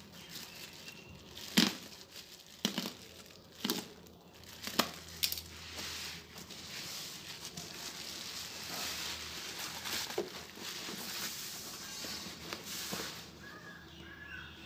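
Plastic bubble wrap crinkling and rustling as it is cut open and pulled off a cardboard box. It gives several sharp cracks in the first five seconds, then dense, steady crinkling that dies away near the end.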